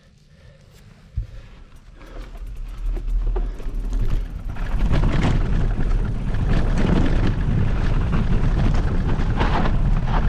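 Wind buffeting the microphone and a mountain bike rattling and rumbling over a gravel track as it sets off and picks up speed downhill, after a single knock about a second in.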